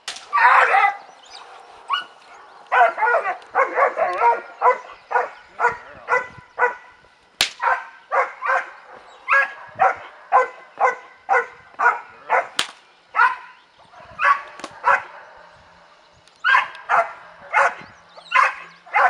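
A German Shepherd puppy barking over and over in short, sharp barks, about two a second, with a short pause past the middle: a young working-line pup barking at the helper during bite-work training. Two sharp cracks stand out among the barks.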